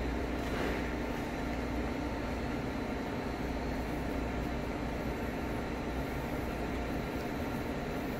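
Steady mechanical hum of a commercial kitchen's ventilation fans, a low drone with a higher hum over it, unchanging in level.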